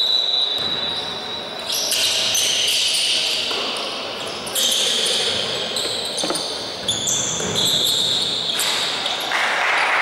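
Basketball game on an indoor hardwood court: sneakers squeaking at shifting high pitches and the ball bouncing, with one sharp knock about six seconds in, over the echo of the gym and players calling out.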